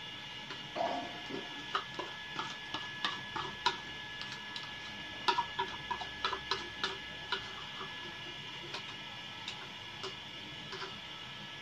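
A run of light, sharp ticks, about three a second, thinning out after about seven seconds, over a faint steady electrical whine.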